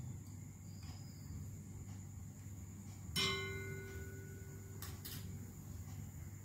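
A small steel spoon clinks once against miniature metal cookware about three seconds in, a bright ringing note that fades over about a second, followed by two faint clicks. A faint steady high-pitched tone runs underneath.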